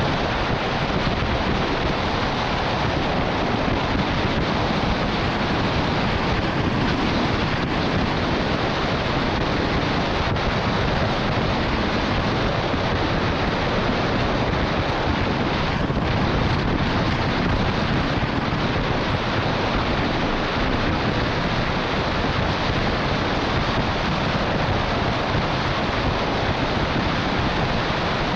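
Steady rush of wind and wet-road noise from a MAN LE280B 4x4 truck driving at highway speed in the rain, picked up by a roof-mounted camera, even and unbroken throughout.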